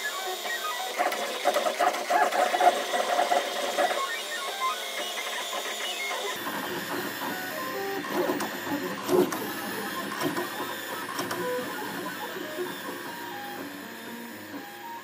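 Desktop 3D printer running, its stepper motors whirring and buzzing in short tones that shift in pitch as the print head darts about. The sound changes character abruptly about six seconds in.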